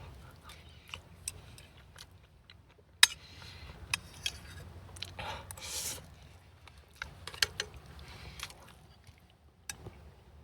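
A person chewing and eating close to the microphone: scattered small clicks, smacks and wet mouth sounds.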